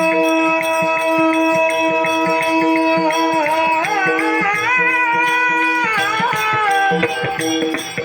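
Marathi devotional bhajan: a harmonium-like drone and a held, ornamented sung note that starts bending and wavering about three seconds in, over a steady percussion beat.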